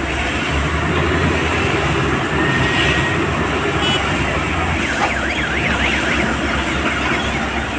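Heavy diesel engines of excavators and a wheel loader running steadily. From about five seconds in, a warbling alarm tone rapidly rises and falls for about two seconds.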